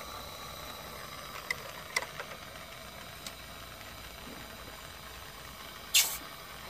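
Steady hiss of a lit jeweller's soldering torch flame, with a few light metal ticks from tools at the bench. Near the end there is one short, sharp burst of hiss, the loudest sound.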